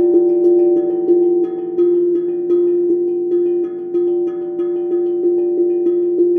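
Steel tongue drum struck with mallets in a steady stream of notes, about two or three strikes a second, with one low note ringing on underneath and higher notes coming and going.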